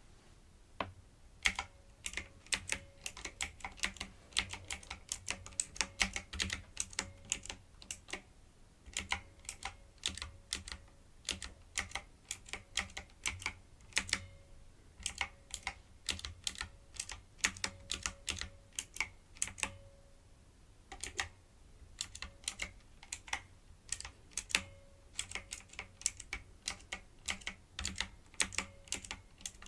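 Typing on a typewriter-style keyboard with round keycaps: fast, irregular runs of sharp key clicks broken by short pauses, with a faint steady low hum beneath.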